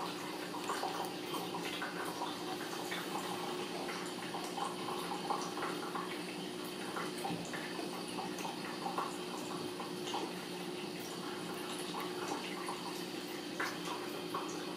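Ragdoll kittens' claws scrabbling and catching on a wool rug and a crocheted tablecloth as they play: many small irregular scratchy ticks over a steady room hum and hiss.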